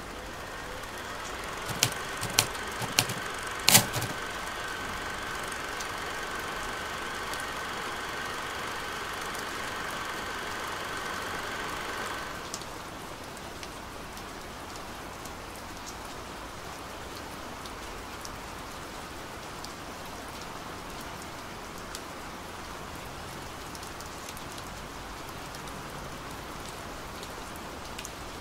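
Steady rain. For roughly the first twelve seconds a steady hum sits over the rain and then cuts off suddenly, and about two to four seconds in there are four sharp clicks, the last one the loudest.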